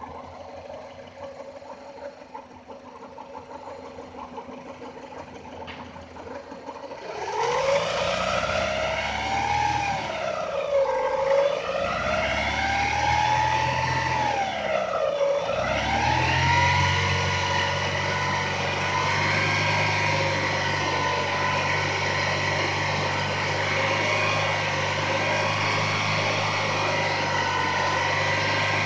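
Chevrolet F14D3 1.4-litre four-cylinder engine idling, then revved about seven seconds in, dipping twice and held at high revs before dropping near the end. A whistle rises and falls with engine speed, heard from about 3000 rpm up. It appeared after a timing belt replacement with an AcDelco kit; belt tension on the tensioner is correct, and the alternator belt and timing cover have been ruled out as its source.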